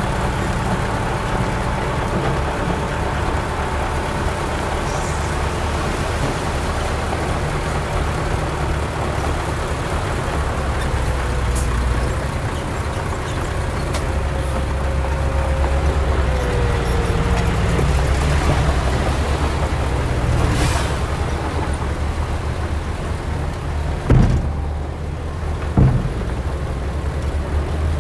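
Heavy diesel earthmoving machinery running steadily with a deep engine rumble. There is a short hiss about two-thirds of the way in and two loud knocks about a second and a half apart near the end.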